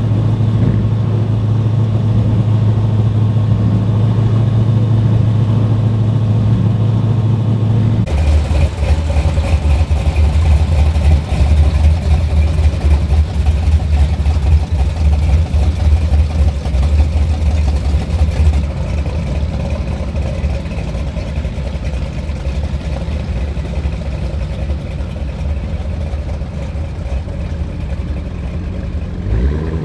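Engines of classic and muscle cars rumbling at low speed, one car after another. First comes a classic Chevrolet pickup's engine idling steadily; about eight seconds in it gives way to a deeper, uneven rumble from a 1969 Chevelle SS's V8 as it rolls by. The rumble carries on more quietly and rises briefly in pitch at the very end.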